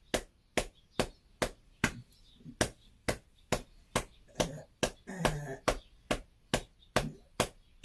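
Rhythmic hand pats on an elderly person's back, a little over two a second, as chest percussion (pai bei) to loosen phlegm the patient cannot cough up. A short voice is heard about five seconds in.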